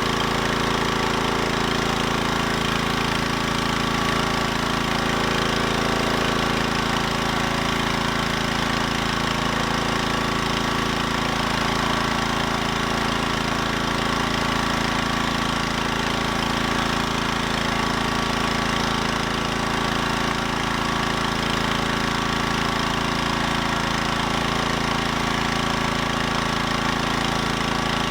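Husqvarna PW3400 gas pressure washer's engine running steadily under load while it drives a 15-inch surface cleaner spraying across pavement, a constant hum with the hiss of the water jets.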